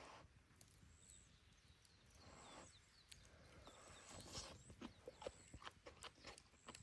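Wood fire burning in a Solo Stove Yukon fire pit, faint, with sharp irregular crackles and pops, a busier spell of pops in the second half.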